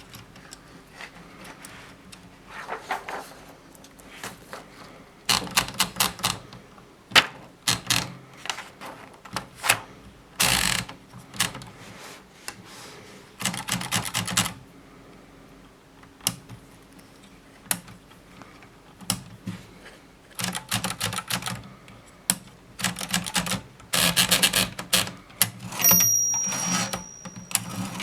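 Groma Kolibri portable typewriter being typed on: bursts of quick key strikes with pauses between them, and a longer rasping stroke about ten seconds in. A thin steady high tone sounds in the last two seconds.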